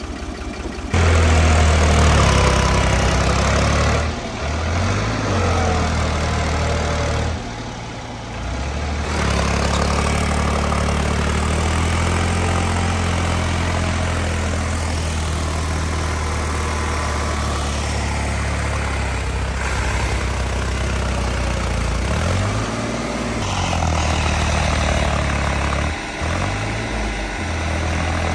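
Diesel tractor engines running hard under load as one tractor tows another out of deep mud through a tow strap. The engine note is steady for long stretches, drops away sharply twice in the first ten seconds, and falls and rises a few times near the end as the throttle changes.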